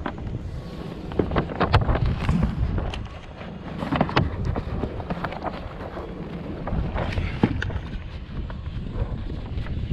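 Wind buffeting the microphone in a steady low rumble, with many scattered sharp clicks and knocks from handling gear aboard a kayak.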